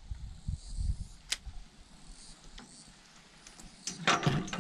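Light knocks and clicks of handling aboard a small wooden boat: a few low knocks in the first second, one sharp click, then a louder cluster of clicks near the end.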